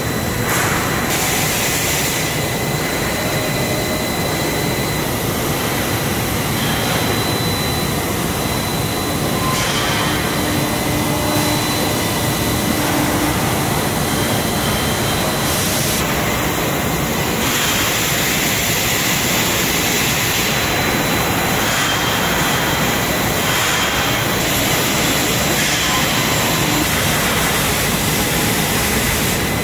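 Welded steel pipe mill running: a loud steady industrial din from the strip accumulator and forming roll stands, with a thin steady high whine, the noise shifting abruptly several times.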